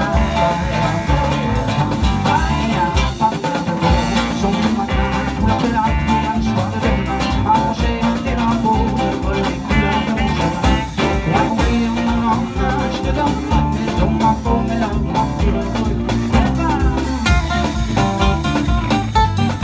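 Live band playing a song on baritone saxophone, acoustic guitar, electric bass, violin and drum kit, with a steady beat.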